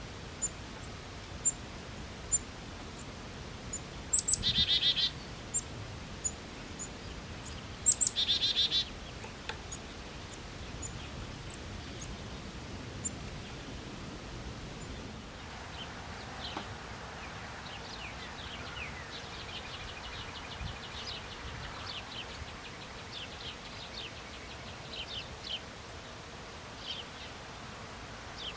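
Backyard songbirds: high, thin chip notes repeated about once a second, broken twice by a short buzzy trill, then a more varied, busier birdsong through the second half.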